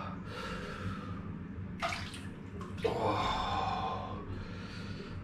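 Water sloshing in a hot-spring bathing pool as a man shifts in it, sinking to his chin and rising to lean on the edge, in a few swells of a second or so over a steady low hum.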